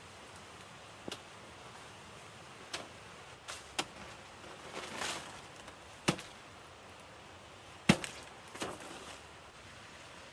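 A knife chopping into a banana plant: a series of sharp, irregularly spaced chops, the loudest about eight seconds in, with a longer rustle of leaves about five seconds in.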